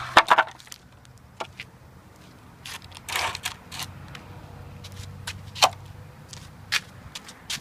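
Wooden boards being handled: irregular knocks and clacks of wood against wood, with a short scrape about three seconds in, as pieces are pulled from a scrap-wood pile and laid against each other.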